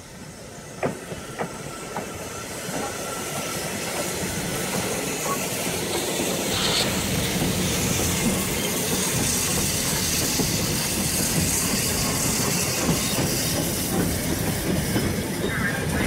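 BR Standard Class 2MT 2-6-0 steam locomotive No. 78018 approaching and passing close, hissing steam from around its cylinders and getting louder over the first several seconds. Then the loose-coupled goods wagons roll by with irregular clanks of wheels over the rail joints.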